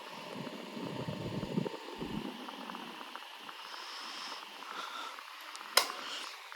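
Better Homes and Gardens 8-inch metal table fan running on high speed: a steady rush of air with a faint hum. There are low rumbles in the first couple of seconds and a single sharp click near the end.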